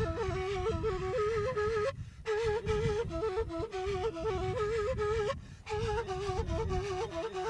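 Music: a single melody on a flute-like wind instrument, full of quick ornamental turns, breaking off twice for a moment, over a low rumbling noise.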